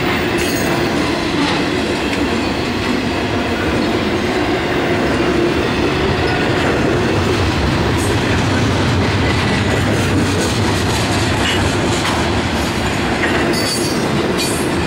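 Intermodal freight train's container and trailer cars rolling steadily past close by, steel wheels clattering over the rail joints.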